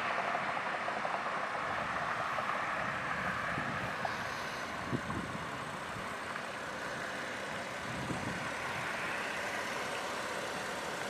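Steady road traffic noise from passing vehicles, easing slightly over the first few seconds, with a brief click about five seconds in.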